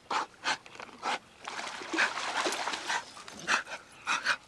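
A dog panting hard in short, uneven breaths.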